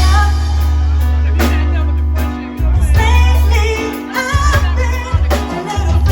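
Loud music with singing over heavy bass and drums.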